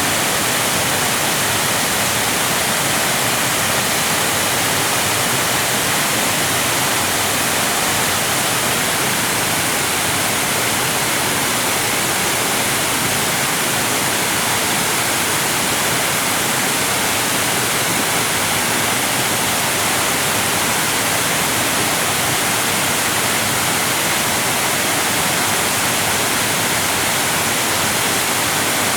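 Waterfall: water pouring and crashing in a loud, unbroken steady rush with a strong hiss.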